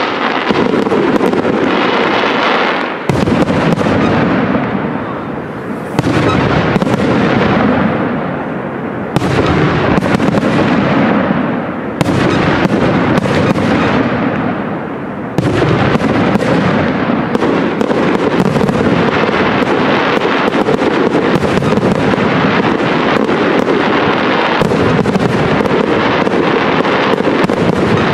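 Aerial fireworks display: shells bursting in loud bangs and dense crackling. Fresh volleys start sharply about every three seconds through the first half, then run together into one continuous barrage.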